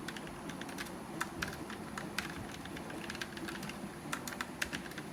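Typing on a Keychron K1 v4 low-profile mechanical keyboard with Gateron Red linear switches: an irregular run of key clacks, several a second.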